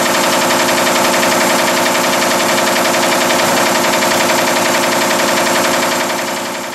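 Zeus B-3 Double twin-wire nail making machine running at speed, a steady, very fast mechanical clatter of its cutting and heading strokes. The sound fades out near the end.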